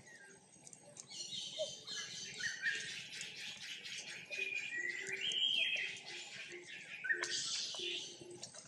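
Birds chirping: many quick, high calls overlapping, quiet for the first second and then continuous.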